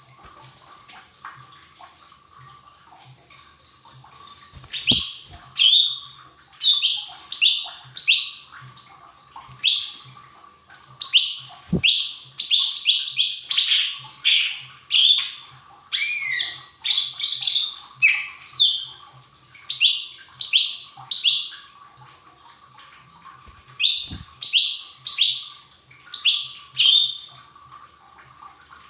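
Cucak ijo mini (small green leafbird) calling: short, sharp, high chirps in irregular runs, with pauses between runs. Faint steady hum beneath, and a few dull thumps.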